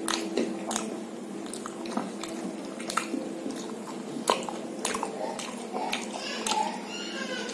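Close-up chewing and biting of samosa and jalebi, with irregular crunching clicks from the mouth.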